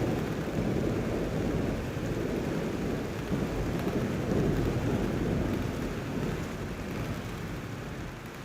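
A long, low rumble of thunder, loudest over the first five seconds or so and dying away toward the end, over a steady hiss.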